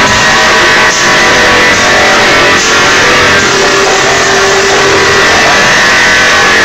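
Loud dubstep played over a club sound system. In this stretch there is little deep bass, just held synth tones and a few sharp hits.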